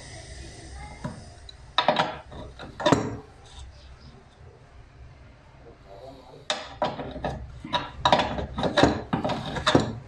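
Metal tools and parts knocking and clinking as they are handled: two sharp clanks in the first few seconds, then a run of clanks in the second half.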